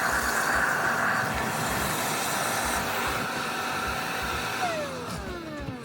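Electric power-tool motor running steadily, then released and spinning down with a falling whine near the end.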